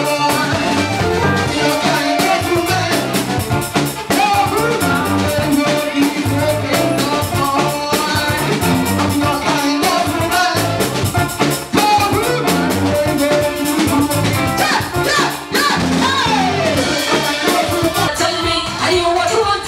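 A woman singing into a microphone over loud backing music with a steady drum beat.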